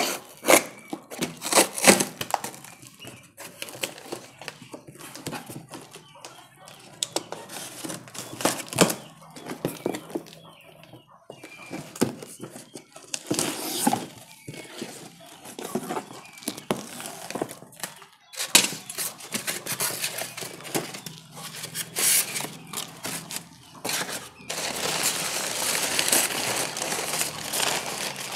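Cardboard box being unpacked by hand: irregular scrapes, tearing and rustles of cardboard and tape. Near the end, a denser, continuous rustle of crumpled kraft packing paper being pulled out of the box.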